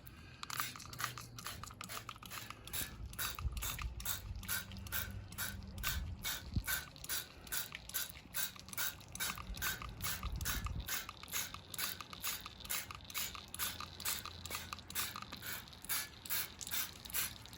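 Rapid, regular rasping strokes from a chrome part being scrubbed clean by hand, about three or four strokes a second, over a low steady hum.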